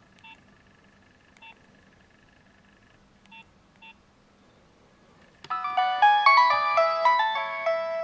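Nokia 6220 mobile phone giving a few faint short beeps, then, about five seconds in, starting a loud polyphonic ringtone melody of quick overlapping notes.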